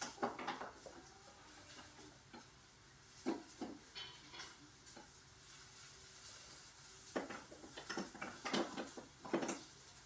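Rummaging: hard objects being picked up and moved, with irregular knocks and clatters, a cluster right at the start, a few more around three to four seconds in, and a busier run through the last three seconds.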